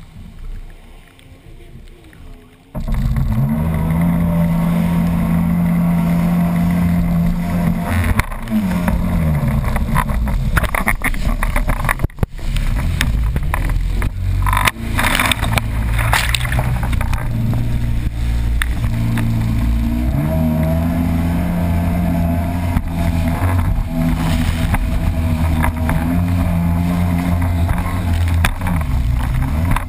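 Jet ski engine quiet for the first few seconds, then throttled up and running hard, with water spray hissing over it. The engine pitch drops and climbs back a few times as the throttle eases and opens again, with louder splashes of spray in the middle.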